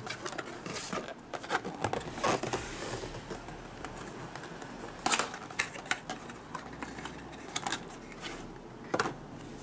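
Cardboard packaging being handled: a lens's white inner box slid out of its outer carton, turned over and its flaps opened, with scattered brief scrapes and taps. The loudest come about five seconds in and near the end, where the cloth lens pouch inside is being reached for.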